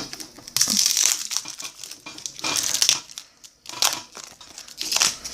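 Baseball card pack wrapper crinkling and rustling as it is handled and torn open, in about four separate bursts.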